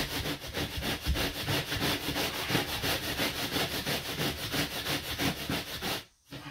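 A long spirit level worked rapidly back and forth across the fresh sand-cement mortar bed of a shower pan, striking it off flat: a loud, quick, even scraping rhythm that stops near the end.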